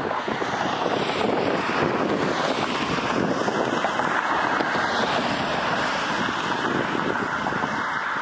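Twin-engine business jet's turbofan engines running as it rolls away down the runway: a steady, loud jet noise, with wind buffeting the microphone.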